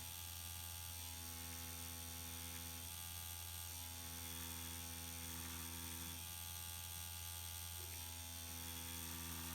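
Permanent makeup machine humming steadily at a low pitch, with a higher tone that comes and goes three times in stretches of a few seconds as it draws hair strokes.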